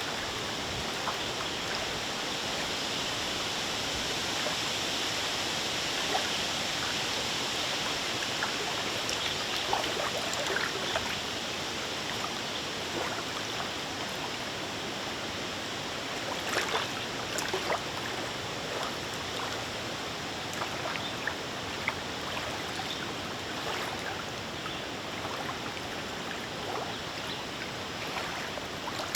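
Lake water lapping in a breeze: a steady wash of small waves with frequent little splashes and clicks against the shore.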